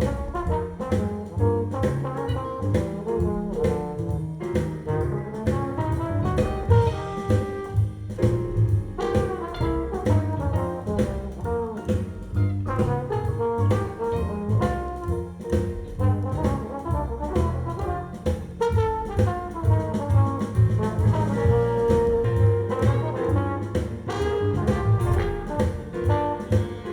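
Recorded jazz-blues music played back over Wilson Audio loudspeakers: an instrumental break with brass horns playing over a steady beat and bass, no singing.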